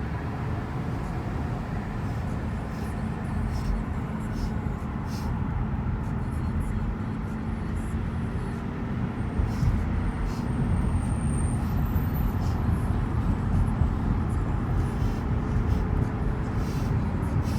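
Steady low rumble of a car on the move, engine and road noise, growing slightly louder, with a faint steady hum and a few light ticks.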